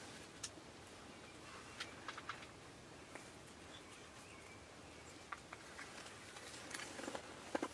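Quiet outdoor ambience with scattered faint clicks and ticks: a few in quick succession about two seconds in and a louder cluster near the end.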